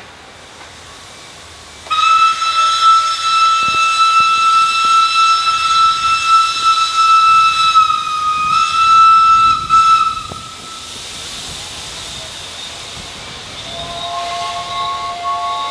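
Steam locomotive whistle giving one long, steady blast of about eight seconds, with a brief wobble in pitch near its end, over the hiss of escaping steam. Near the end a second, lower whistle sounding several notes at once begins.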